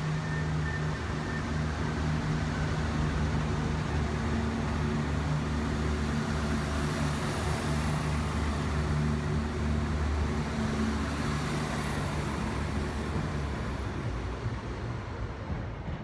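Diesel engines of a Northern multiple unit running steadily as the train pulls out under the trainshed, fading over the last couple of seconds.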